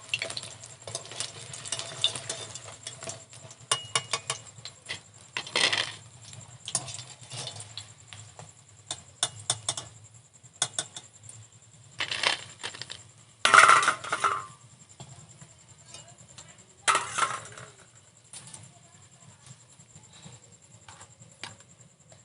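A metal utensil clinking and scraping against a kadai as fried chicken pakoras are lifted out of the oil: many sharp clicks, with a few louder scrapes.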